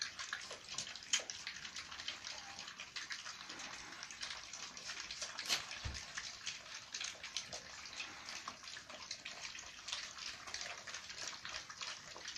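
A litter of American Staffordshire Terrier puppies eating soaked kibble together from one round metal pan: a dense, continuous patter of wet lapping, smacking and chewing, with scattered sharper clicks.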